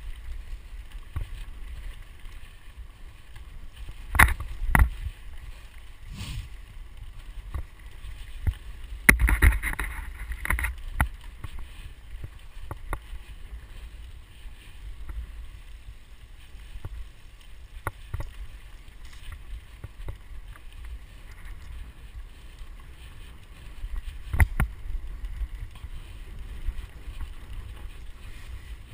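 Mountain bike rolling along a rough dirt trail, heard from a camera riding on the bike or rider: a steady low rumble with wind on the microphone, broken a few times by sharp knocks and rattles as the bike goes over bumps.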